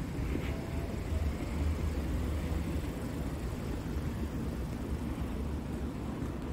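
Steady low rumble of outdoor street background noise, with no single event standing out.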